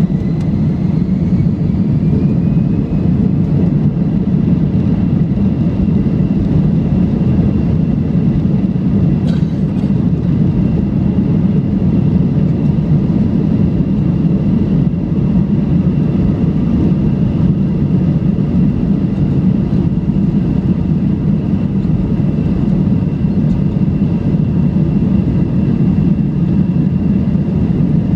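Airbus A320-211's CFM56 jet engines at takeoff thrust, heard from inside the cabin behind the wing, as the airliner accelerates down the runway. It is a loud, steady rumble with a high engine whine that rises over the first few seconds and then holds. There is a brief click about nine seconds in.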